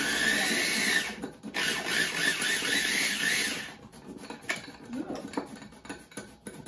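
Small electric kitchen chopper's motor running with a steady whine, cutting out briefly about a second in and stopping a little before the four-second mark; its broken cap is bypassed with a knife to make it run. Small clicks and knocks of utensils follow.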